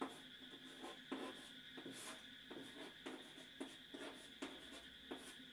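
Chalk writing on a blackboard: faint, irregular taps and short scratching strokes as an equation is written, over a faint steady hum.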